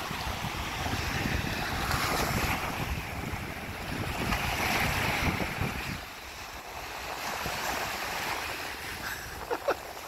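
Rough surf breaking and washing in over the shallows, with wind buffeting the microphone. The wind rumble eases about six seconds in.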